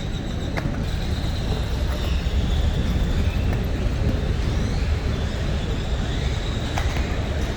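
Steady low outdoor rumble of vehicle traffic, with a faint click about half a second in and another near the end.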